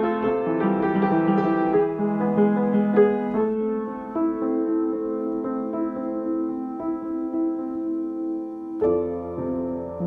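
Solo piano playing a gentle original composition. The playing thins out and grows softer in the middle, then a fuller chord with a low bass note comes in near the end.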